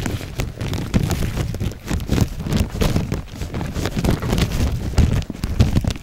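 Wind buffeting a handheld camera's microphone in uneven low gusts, with footsteps on dirt and handling knocks mixed in.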